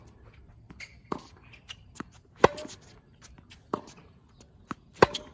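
Tennis groundstroke rally on a hard court: a ball struck by rackets with sharp pocks and bouncing on the court, with sneakers shuffling. The two loudest hits come about 2.5 s and 5 s in, each with a brief ring of the strings, and quieter hits from the far end fall between them.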